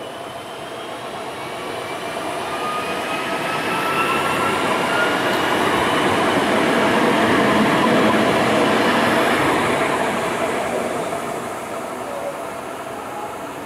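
Alstom Citadis Dualis tram-train passing close by on its rails, swelling to a peak about eight seconds in and then fading. A high whine runs through the passing and rises slightly in pitch as it nears.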